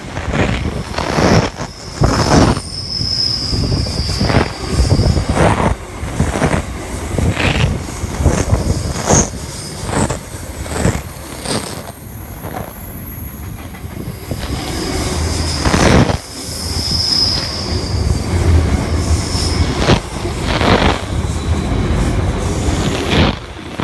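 Container freight train passing close by: a steady rumble of wagons with repeated clacks from the wheels going over the rail joints, and thin, high-pitched wheel squeal that comes and goes.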